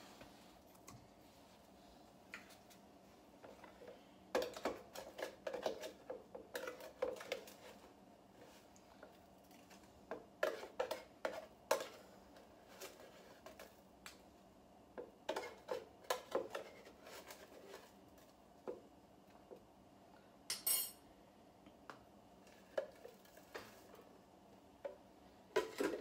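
Brown sugar being scooped out of its container and knocked into a pan: bursts of scraping and clinking every few seconds, with one sharp clink about two-thirds of the way through.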